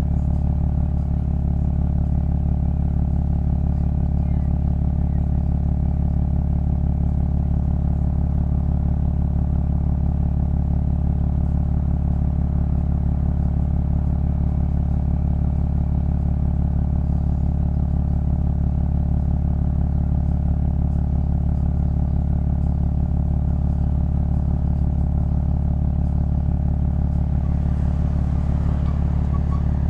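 Steady low rumble of a car on the move, picked up by a camera mounted on the car's outside: wind and road noise that holds an even pitch throughout. A faint lighter hiss rises briefly near the end.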